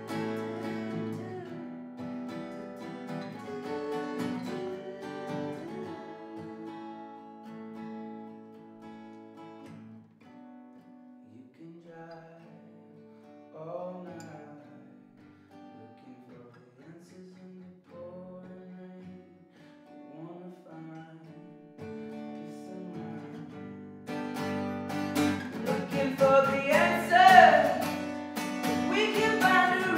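Solo acoustic guitar with a male voice singing in a tiled bathroom. The playing thins out to sparse, soft notes and short sung phrases about ten seconds in, then about 24 seconds in the strumming turns loud and the singing comes in strongly.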